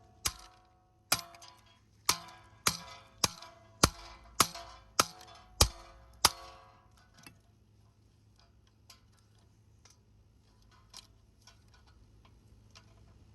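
Metal parts of a ceiling fan being struck hard about ten times, roughly one blow every 0.6 seconds, each hit giving a short metallic ring. After that only a few faint light clicks follow.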